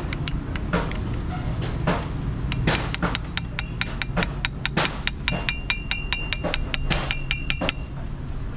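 A wrench working the bolt of the Isuzu diesel's timing idler gear: a few loose metal clicks, then from a few seconds in a quick, even run of sharp metal clicks, about five a second, ringing over the last few seconds before it stops. A steady low hum runs underneath.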